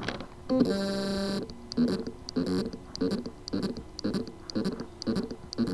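WD Scorpio Blue 2.5-inch laptop hard drive whose spindle motor has loose contacts on the circuit board: a buzzing tone for under a second, then a rhythmic pulsing about two to three times a second, and the buzzing tone again at the end. The motor spins but cannot reach its full speed.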